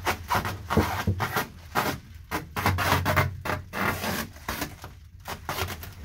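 Foil tape being pulled off its roll and pressed around foil-faced bubble insulation on a duct: a rapid run of short, scratchy rustles and crinkles.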